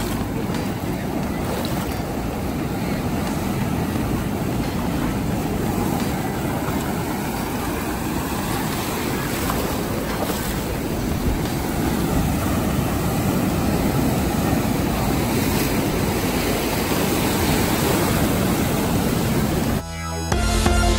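Ocean surf washing in over and around rocks in shallow water: a steady rushing, churning wash. Electronic music cuts in abruptly near the end.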